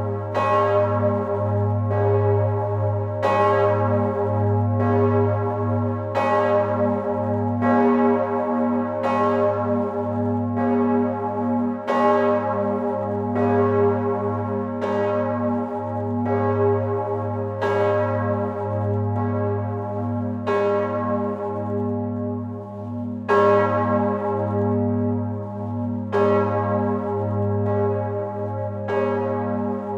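Large swinging bronze church bell, the Pfundner-cast Stephanusglocke tuned to g°, ringing close-up inside its belfry. It strikes about once a second, and its deep hum carries on unbroken between the strokes.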